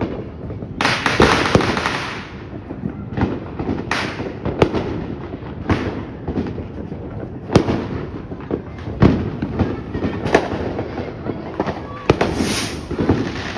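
Fireworks going off: a run of sharp bangs and pops mixed with dense crackling bursts. The loudest bangs come about 7.5, 9 and 10 seconds in.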